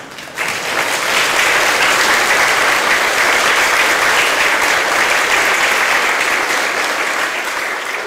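Audience applauding loudly, starting suddenly about half a second in.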